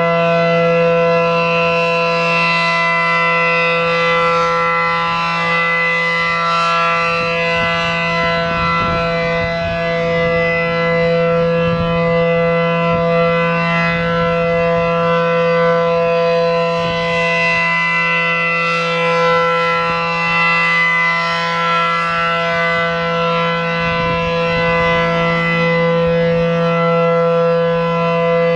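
Reverse-wired A.C.A. P-10 outdoor warning siren running at full speed on a steady tone, the alert signal, with no rise or fall in pitch.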